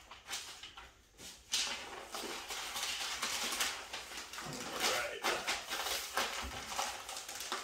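Butcher paper crinkling and rustling as it is folded and wrapped into a parcel, in irregular crackles starting about a second and a half in.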